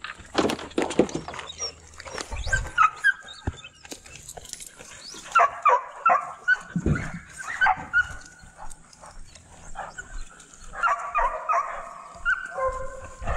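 Hunting dogs whining and yipping over and over in short high-pitched calls, with a few knocks at the start.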